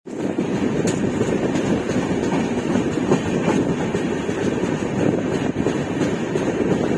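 Indian Railways express train running along the track: a steady noise of coach wheels on the rails, heard from an open doorway of a moving coach.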